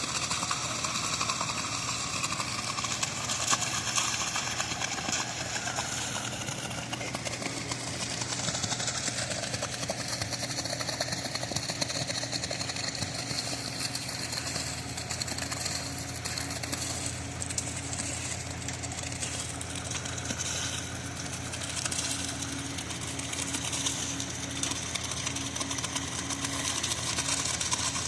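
An engine running steadily under a continuous mechanical noise, with a steady tone joining about halfway through.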